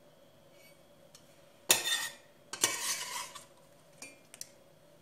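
Metal ladle scraping and clinking against a stainless steel pot while scooping up syrupy melon jam: two main scrapes about a second apart in the middle, with a few light clicks around them.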